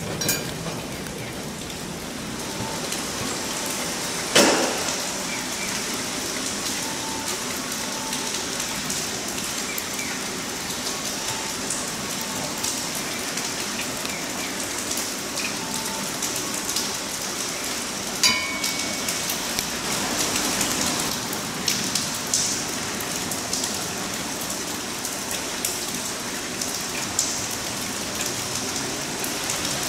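Steady rain hissing on wet pavement and track, with two sharp knocks, about four seconds in and again about eighteen seconds in.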